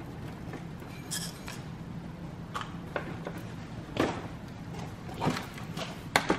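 Scattered clinks and knocks of hand tools and plastic fairing panels as the lower fairing of a Honda CBR600RR is unscrewed and taken off, about five separate knocks over a steady low hum.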